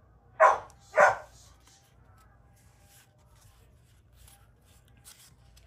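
A dog barks twice, about half a second apart, followed by faint rustling.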